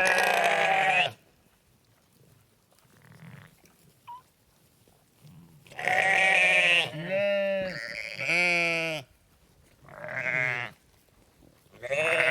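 Sheep bleating: about five loud calls, each lasting up to a second, with quiet gaps between them.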